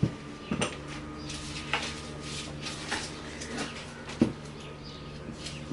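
Old rubber handlebar grip being twisted on the bar, with scattered small clicks and crackles as the 50-year-old glue beneath it lets go.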